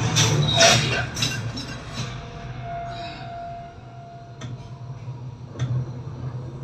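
Film soundtrack played over home-theatre speakers and picked up in the room: a dramatic score with a few sharp hits in the first second, thinning to a low steady drone with a held high note and a couple of sharp clicks.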